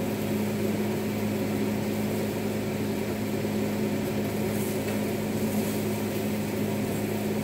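Steady electric hum of the over-the-range microwave's vent fan running above the stove, with small sausages sizzling in griddle pans underneath.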